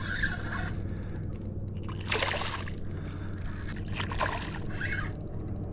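A hooked snook thrashing at the surface on a topwater plug, splashing in short bursts about two seconds in and again just after four seconds in.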